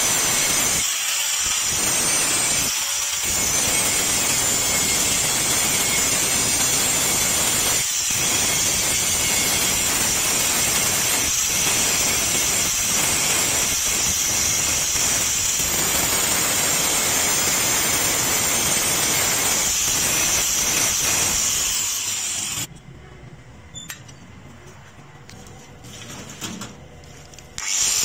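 Angle grinder's abrasive disc grinding into the steel of an adjustable wrench: a loud, steady, high hissing whine. About three-quarters of the way through it stops suddenly, leaving only faint handling sounds, and the grinding starts again just before the end.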